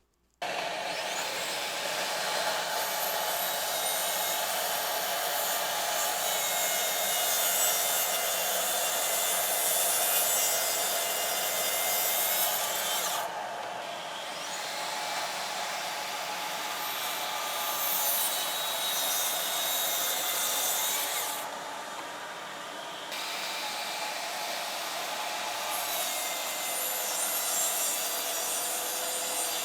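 Track saw running and cutting through the end of a thick wooden workbench top, squaring it off: a steady motor whine under the noise of the blade in the wood, with the higher sound easing off briefly twice along the cut.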